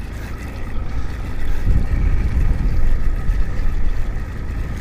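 Wind rumbling on the microphone, strongest through the middle, over a faint steady whine.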